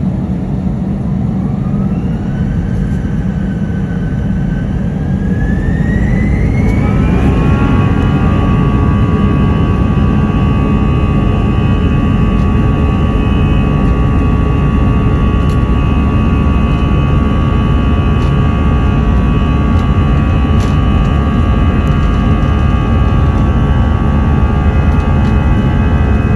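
Airbus A320's CFM56 turbofan engines spooling up to full takeoff thrust. A whine rises in pitch over the first several seconds, then holds steady over a loud, deep rumble.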